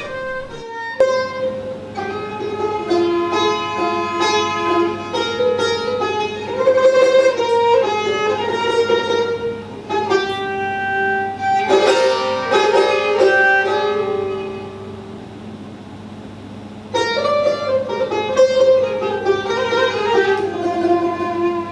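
Persian classical music on tar and kamancheh: plucked tar notes under the bowed kamancheh's melody. The playing thins to a quieter passage about two thirds of the way through, then comes back in fully.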